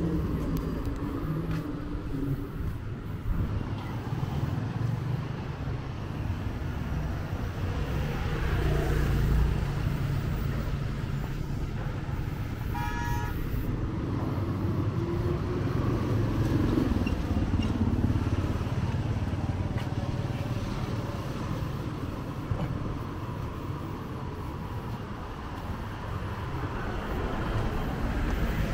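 Traffic on a busy street: the engines of passing motor vehicles run in a continuous low rumble. About thirteen seconds in, one vehicle horn gives a short toot.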